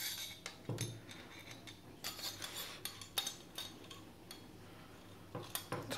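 Long screwdriver turning a screw deep inside an airsoft rifle's metal buffer tube: faint metallic scraping and light ticks, with a few louder knocks of the rifle and tools being handled.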